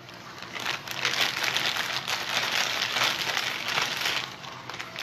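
Plastic piping bag crinkling as it is handled and squeezed, a dense crackle that starts about half a second in and dies away near the end.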